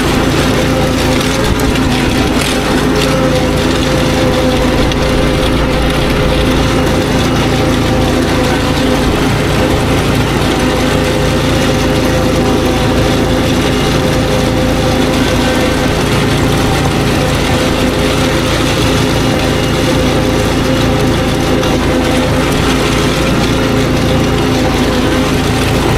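Ride-on power dethatcher's small engine running steadily under load, its spinning rake tearing dead thatch out of the lawn as it is driven along.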